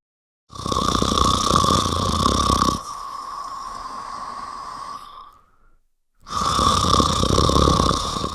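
A person snoring: a loud snore lasting about two seconds, then a quieter, longer breath fading out, a short pause, and a second loud snore near the end.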